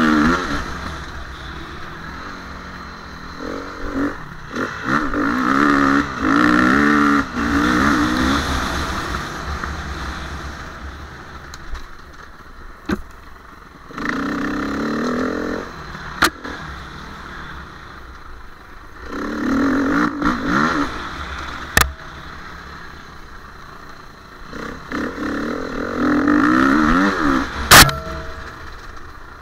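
KTM 350 EXC single-cylinder four-stroke enduro motorcycle engine revving in repeated throttle bursts, its pitch rising and falling, and dropping back between them on an off-road trail ride. Several sharp knocks stand out, the loudest near the end.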